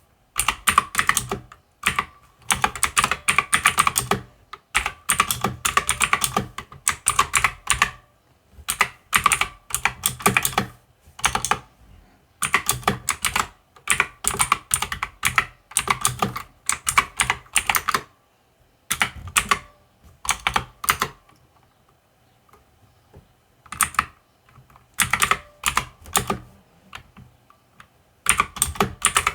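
Typing on a mechanical computer keyboard: quick runs of key clicks in bursts of a second or two, with short pauses between them.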